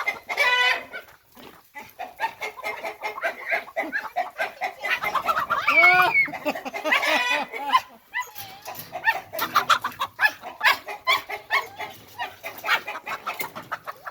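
A flock of chickens clucking rapidly and continuously, broken by a few longer, louder squawks about half a second in and again around six to seven seconds in, the sound of agitated hens.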